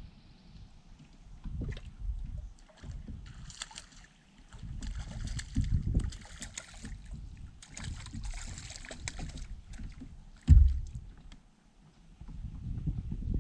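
Fly reel on a crappie jig pole clicking in three short bursts as line is wound in on a hooked crappie, over gusty wind rumble on the microphone. A single loud thump comes about ten and a half seconds in.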